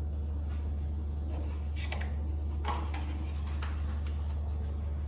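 A steady low hum with a few faint clicks and knocks about two to four seconds in.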